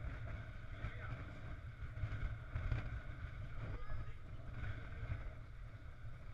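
Wind buffeting the microphone of a helmet-mounted camera on a moving bicycle: a steady, fluttering low rumble.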